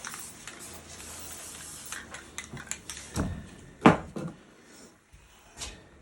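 Spray paint can hissing steadily for about two seconds, then a run of clatter and knocks from items being handled and set down, the loudest knock about four seconds in.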